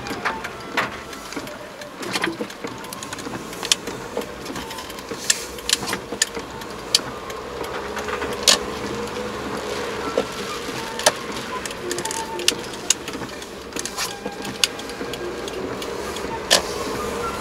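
Car cabin while driving on a wet road: steady road and engine noise, broken by irregular sharp ticks of raindrops striking the roof and windshield.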